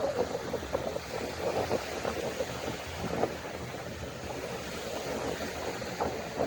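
Wind gusting across the microphone in short, uneven flutters, over the steady wash of sea waves.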